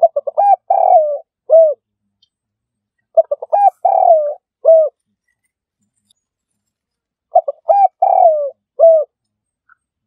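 Spotted dove cooing: three repeated call phrases about four seconds apart, each a quick run of short coos leading into a longer falling coo and one final separate coo.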